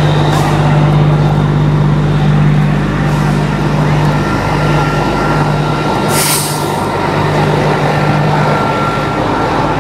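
Parked coach buses idling with a steady low engine hum. About six seconds in comes a short hiss of released air from a bus's air brakes.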